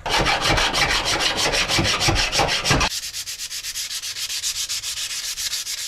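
Hand file, then a sanding pad, scraped in rapid, even back-and-forth strokes along a freshly drilled stainless steel strip. The strokes turn lighter and higher-pitched about three seconds in, when the file gives way to the sanding pad.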